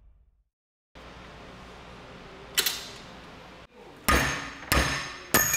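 Intro music fades into a short silence, then a low hum. One sharp metal knock comes about two and a half seconds in. From about four seconds in, three loud metal-on-metal strikes land about 0.6 s apart on a steel wrench clamped in a bench vise, and the last one rings on with high tones.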